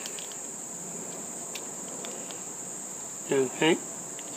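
A steady high-pitched whine runs throughout, with a few faint light clicks as the brass CSST fitting and its sleeve are handled.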